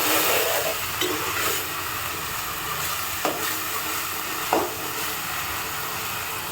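Gongura (sorrel) leaves and tempering spices sizzling in hot oil in a pan while being stirred with a spoon, with a steady sizzle and a few short scrapes of the spoon against the pan.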